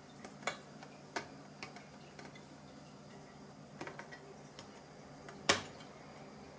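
Small sharp clicks and light taps of hands fitting a laptop SSD and reconnecting its SATA connector, a handful spread out, the loudest near the end.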